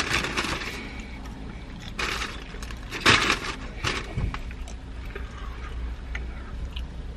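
Van's engine idling, heard from inside the cab as a steady low rumble, with a few short rustling sounds near the start and about 2, 3 and 4 seconds in.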